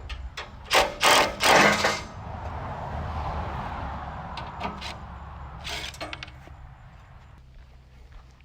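Loud knocks and clatter a little under a second in, from parts being handled while a sawmill is assembled, followed by a softer steady rushing noise that fades out, with another knock in the middle of it.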